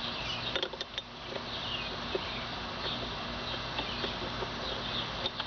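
A few light clicks and taps of metal parts being handled as a nut is threaded onto a bolt by hand, with faint high chirping in the background.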